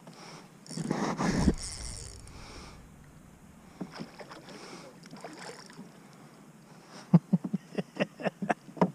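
A hooked fish splashing at the surface beside a kayak, loudest about a second in. In the last two seconds comes a quick run of sharp clicks, about five a second, from the fishing tackle as the fish is played.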